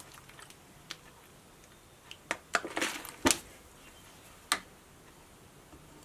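A few light clicks and knocks of a knife being handled against a whetstone: one a little under a second in, a quick cluster around the middle, and one more a few seconds in.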